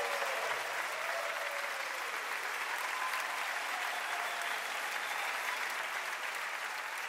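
Live concert audience applauding, a steady clapping that eases off slightly toward the end.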